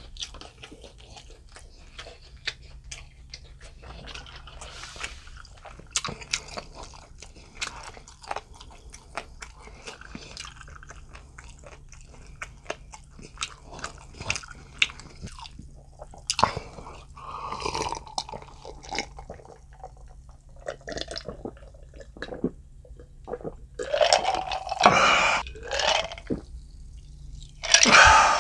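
Close-miked chewing of boiled pork slices (suyuk): a steady run of wet mouth clicks and smacks, with a few louder, longer mouth sounds in the last few seconds.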